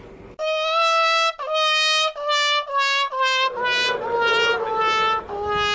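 Station public-address jingle, a loud trumpet-like melody that falls step by step through about eight notes and ends on a long held note.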